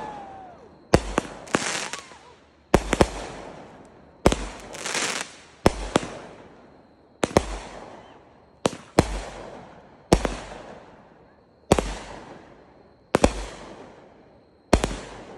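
A multi-shot consumer firework cake firing shot after shot. There is a sharp bang about every one and a half seconds, many of them followed quickly by a second pop, and each trails off in a fading crackle and hiss.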